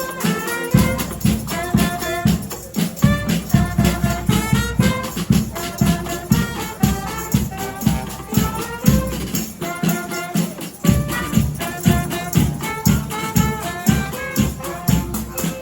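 Marching band playing live: wind instruments carry a tune over a regular drum beat.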